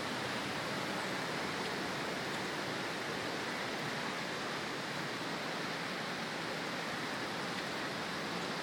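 Steady rush of a river in flood, its swollen water pouring past without a break.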